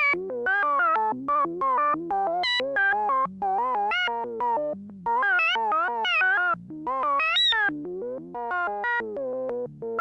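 Electronic synthesizer tones in a rapid random sequence, short beeps of several a second jumping between low and medium pitches, some with a slight warble. It is the kind of sci-fi computer or telemetry data sound used for consoles and interfaces.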